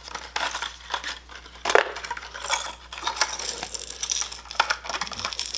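A hard-plastic fishing lure package being handled and opened: an irregular run of small clicks and clinks.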